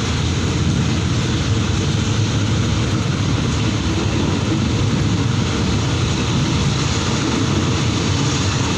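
Passenger train running along the line, a loud steady rumble of wheels and engine with rushing noise, heard from aboard the carriage.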